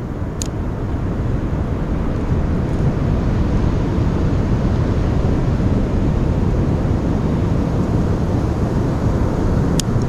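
Steady low rumbling noise of wind and breaking ocean surf. Two faint, sharp clicks come through, one near the start and one near the end.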